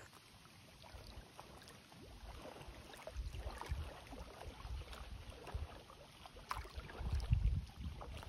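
Small waves lapping at the lake's edge, with faint clicks and splashes among the sticks in the shallows. Wind buffets the microphone in low rumbling gusts, about three seconds in and again near the end.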